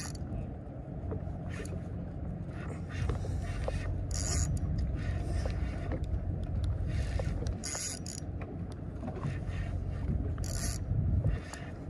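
Wind on the microphone and water sloshing against a small boat's hull, a steady low rumble, with four short high hisses a few seconds apart.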